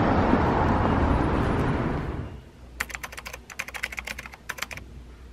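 Loud outdoor street noise fades out about two seconds in, then a keyboard-typing sound effect follows: a quick run of key clicks lasting about two seconds.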